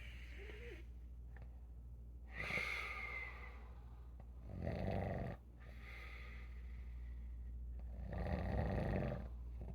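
A sleeping elderly person snoring: two rough, rattling snores about four seconds apart, the first cutting off abruptly, with a whistling breath a couple of seconds in.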